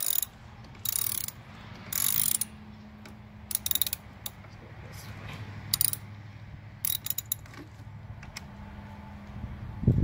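Hand ratchet with a T30 Torx bit clicking in short runs as it backs the stock screw out of a handlebar end, over a steady low hum. A single loud thump just before the end.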